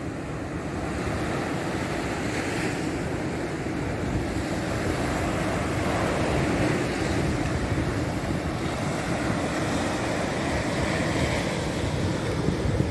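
Surf washing onto a beach, a steady rush that swells and eases slowly, with wind buffeting the microphone.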